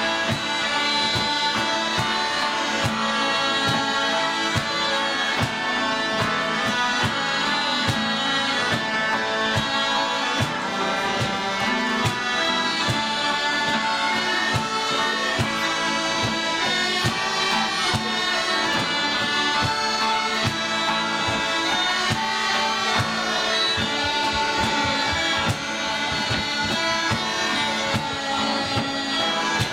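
A group of Scottish smallpipes playing a traditional tune in unison, a steady drone held under the chanter melody. Near the end the music changes to a folk band with acoustic guitars and fiddle playing along with pipes.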